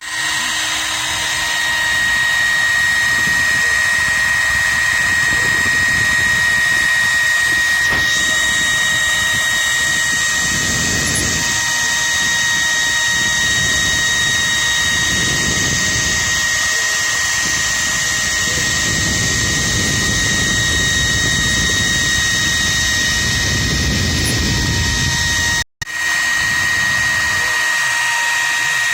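CNC router spindle whining at a steady high pitch while its cutter machines wood, the cutting noise swelling and easing every few seconds as the tool moves. The sound drops out for a moment near the end.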